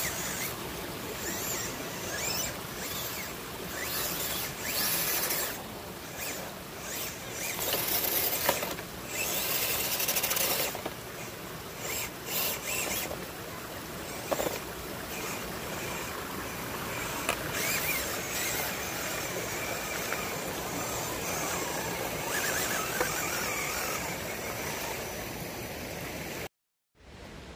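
Electric drivetrain of an RC crawler truck (Tekin ROC412 brushless motor) whining in repeated throttle bursts as it crawls over creek rocks, over the steady rush of the stream.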